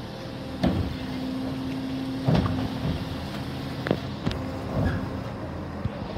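Labrie Automizer side-loading garbage truck running while its automated arm grabs and lifts a green waste cart. A steady engine and hydraulic hum is broken by about six sharp clanks and knocks of the arm and cart, the loudest about two and a half seconds in.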